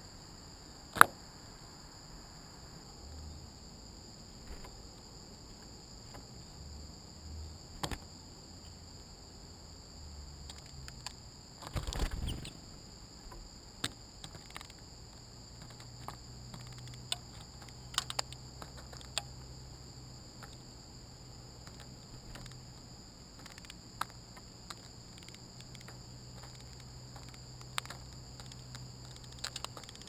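Steady, high-pitched chorus of late-summer insects running throughout, with scattered sharp taps and clicks from small birds (white-breasted nuthatch, black-capped chickadees) landing and pecking close to the camera. The loudest is a single sharp click about a second in, and there is a brief fuller flurry around twelve seconds.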